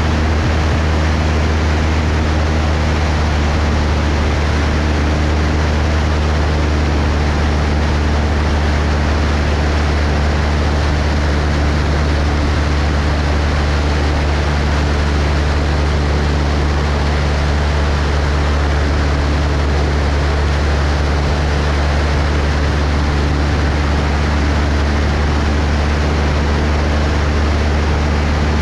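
Cessna 172's piston engine and propeller droning steadily in flight, a constant low hum under a rush of airflow.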